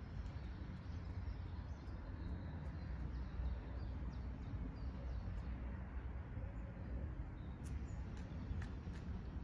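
Birds chirping over a steady low rumble of outdoor background noise, with a few sharp clicks near the end.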